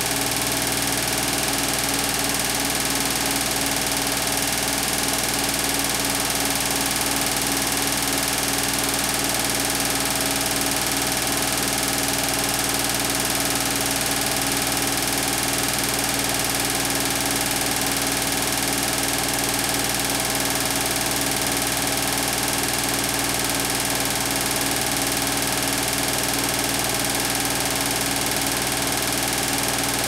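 Beko WTK104121W front-loading washing machine spinning its drum at a steady speed: an even motor whine and hum that holds the same pitch and level throughout.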